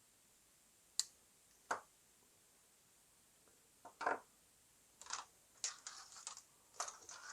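Wire cutters snipping the tinned ends of a cable's conductors: two sharp clicks about a second apart, then a run of quieter clicks and handling noise from about four seconds in.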